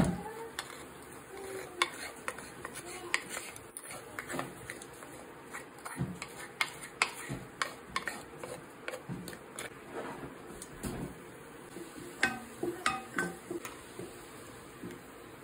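A utensil stirring in a cooking pot, with irregular clinks and taps of metal on metal, some of them ringing briefly.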